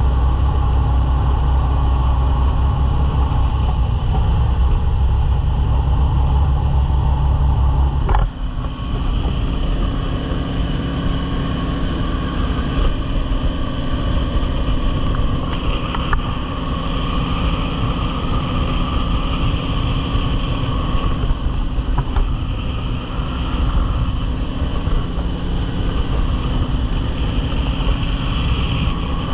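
Jet boat running at speed on a river, its engine and water jet making a steady loud rush with spray and water noise. About eight seconds in the deep rumble drops away suddenly and a steadier, higher engine tone carries on.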